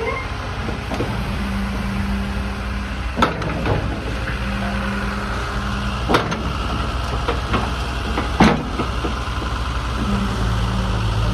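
Hitachi UH045-5 hydraulic excavator's diesel engine running steadily under working load, a steady tone rising and dropping away in stretches as the hydraulics are worked. Three sharp metallic knocks, about 3, 6 and 8.5 seconds in.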